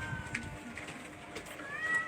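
Cats meowing at feeding time: one meow falls in pitch and trails off just after the start, and another rises near the end, with a few light clicks between.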